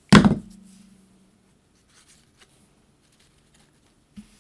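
A single loud knock on the craft table right at the start, ringing briefly and low, then a few faint light taps and a small knock near the end as paper pieces are handled.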